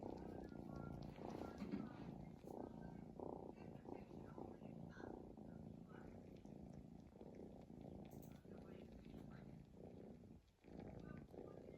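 A sleeping cat snoring in a quiet, low, continuous rumble, briefly dropping away about ten and a half seconds in.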